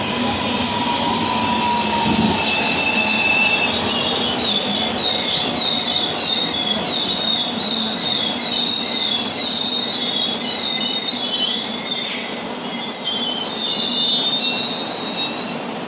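Subway train running on the rails, its wheels squealing with a wavering, high-pitched screech over a steady rumble. The sound fades somewhat near the end.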